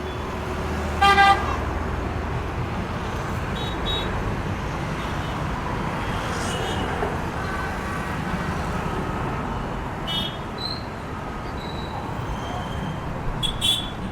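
Road traffic passing in a steady wash of engine and tyre noise, with a short vehicle horn toot about a second in and a few brief high chirps near the end.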